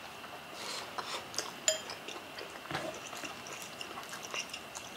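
Eating sounds: chewing and mouth noises, with scattered small clicks and taps as fingers pick at steamed fish.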